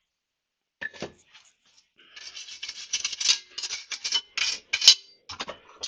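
Threaded fork studs being scrubbed clean by hand: a couple of light clicks, then a fast run of rasping strokes lasting about three seconds.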